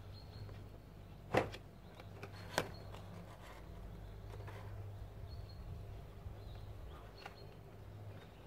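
Two sharp plastic knocks, the first the louder, about a second apart, as panel air filters are pressed into the black plastic airbox of a Volkswagen Polo 6N2, then a few faint ticks of handling, over a low steady hum.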